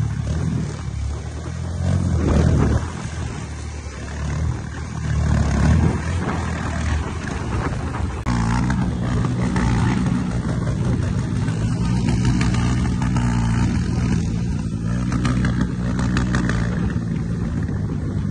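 Motorcycle engines revving as the bikes pull away over wet, muddy ground. The revs surge about two seconds in and again near six seconds, then settle into a steady engine note.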